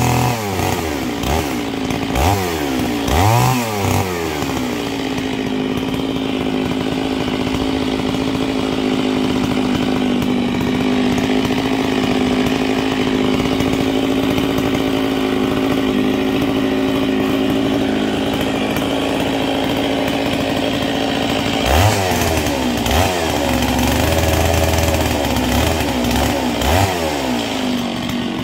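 Stihl 660 two-stroke chainsaw cutting a paulownia log, revving up and falling back several times in the first few seconds and again near the end, with a steady engine note in between.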